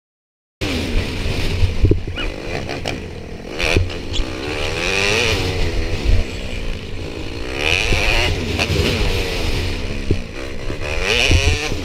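Dirt bike engine revving up and down over and over as the bike accelerates out of corners and over jumps on a motocross track, with several sharp knocks along the way. The sound cuts in about half a second in after a moment of silence.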